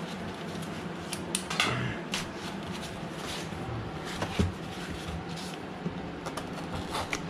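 Cloth-backed sandpaper being cut with a blade and handled, with scattered snips, scrapes and small clicks.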